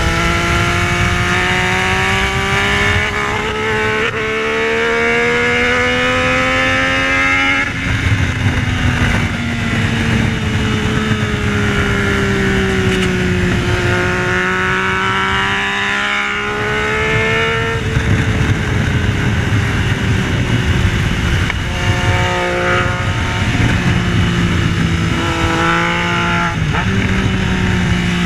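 Yamaha Tracer 900's inline three-cylinder engine under hard acceleration on a track, its pitch climbing for several seconds and then dropping sharply about seven and a half seconds in. It falls off, climbs again, then settles, with short rev blips near the end. A constant rush of wind runs underneath.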